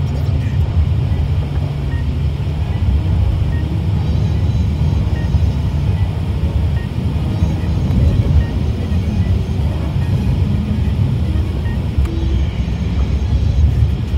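Steady low rumble of a car's engine and tyres on a snow-covered road, heard from inside the cabin, with music playing over it.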